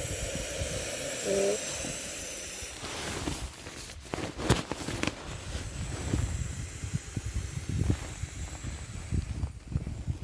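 Strong wind buffeting the microphone: a steady hiss with gusting rumble underneath and a few sharp knocks near the middle.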